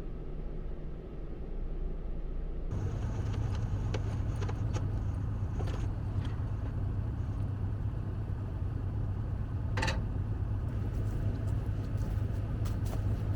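A vehicle engine running steadily with a low hum, with scattered clicks and knocks. The sound changes abruptly about three seconds in.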